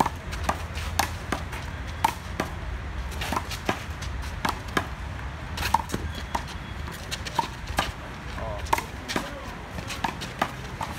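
Handball rally: a rubber handball is struck by the players' hands and slaps off the concrete wall and court. It makes a string of sharp, irregular smacks, about one every half second.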